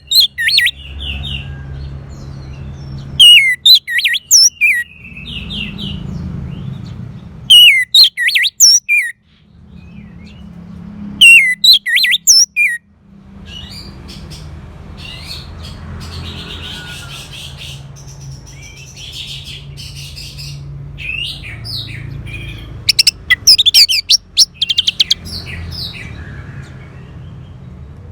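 Orange-headed thrush singing in loud, rapid phrases of quick up-and-down whistled notes, each a second or two long, separated by pauses, with softer twittering in the middle and a steady low hum underneath.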